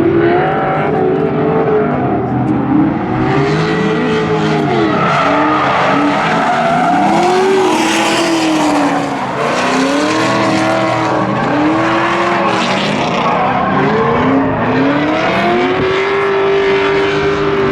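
Drift cars in a tandem run, engines revving up and down over and over as the throttle is worked, over continuous tyre squeal and skidding.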